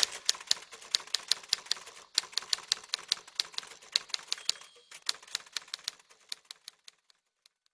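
Manual typewriter keys striking in a rapid, uneven run of clacks, several a second, with a short ringing tone about four and a half seconds in. The keystrokes thin out and stop near the end.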